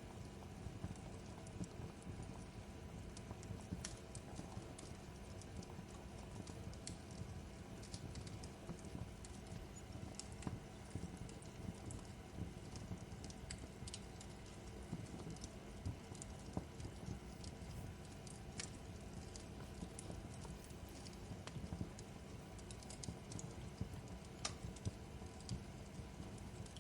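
Fireplace crackling: a steady low rush of the fire with frequent, irregular sharp pops and snaps.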